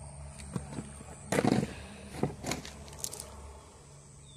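Pet nail clipper snipping a dog's claws, a few sharp clicks, with a louder brief noisy burst about a second and a half in.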